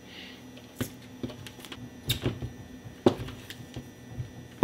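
Chef's knife chopping sticks of butter on a plastic cutting board: irregular knocks as the blade comes down through the butter onto the board, about ten in all, the loudest about three seconds in.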